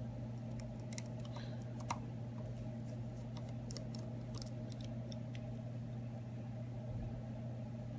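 Scattered faint clicks and ticks of a small precision screwdriver and tweezers working the tiny screws out of an iPhone 6, over a steady low electrical hum.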